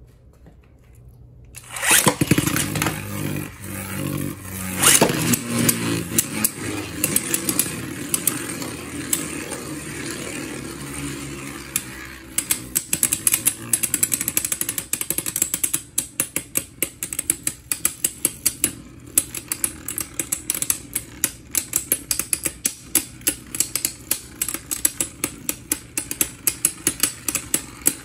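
Two Beyblade Burst tops launched into a plastic stadium about two seconds in, spinning with a loud whirr and rattling clashes. From about halfway on they keep knocking together, about two sharp clacks a second over a steady spinning hum.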